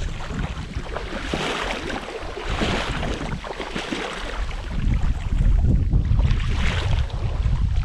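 Water splashing and sloshing in a shallow creek in uneven surges, with wind buffeting the microphone in a low rumble that grows stronger in the second half.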